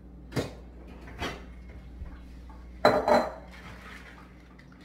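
Glass mixing bowl and kitchenware clattering: two light knocks, then two louder clunks about three seconds in as the glass bowl is set down on the countertop.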